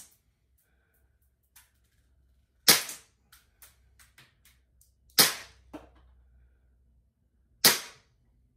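A CO2 blowback Glock 18C replica pistol fired three single shots, about two and a half seconds apart, each a sharp crack followed by a few lighter clicks.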